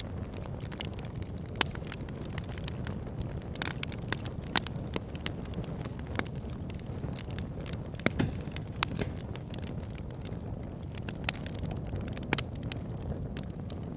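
Wood logs burning in a fireplace, crackling: sharp pops at irregular intervals, a few louder than the rest, over a steady low rumble of the flames.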